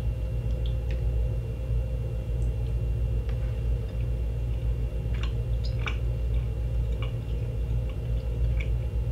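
A person chewing a soft jelly gummy candy, with a few faint wet mouth clicks in the second half, over a steady low electrical hum.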